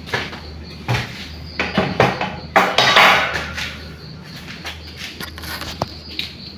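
Irregular knocks, rustles and clatter of objects being handled, then footsteps and rubbing against the microphone as the camera is picked up near the end, over a steady low hum.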